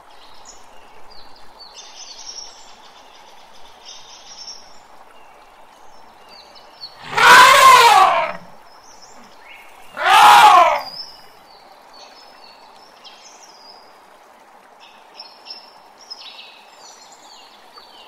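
Elephant trumpeting twice: a longer call about seven seconds in and a shorter one about three seconds later. Birds chirp faintly in between.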